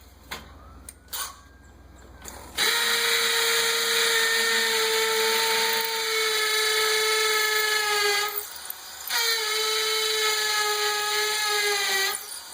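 Cordless hammer drill with a 1/4-inch bit pre-drilling a pilot hole into a concrete block column. It makes two long steady runs, the first about six seconds and the second about three, with a short pause between, and the pitch drops slightly during each run. A few small clicks come before it starts.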